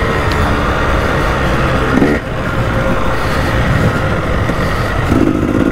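Dirt bike engine running under throttle on a muddy trail, revs climbing briefly about two seconds in.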